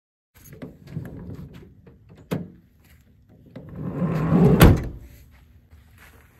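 Chevrolet Astro van's sliding side door rolled along its track and slammed shut about four and a half seconds in, after some rustling and a sharp click.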